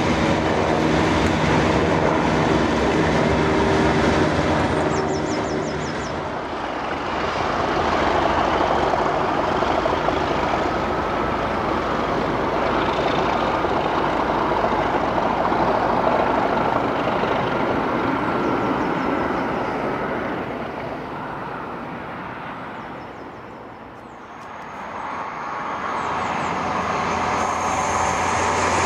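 Train passing by. A steady engine hum in the first few seconds gives way to a long rush of running noise, which fades about three-quarters of the way through. Train noise rises again near the end.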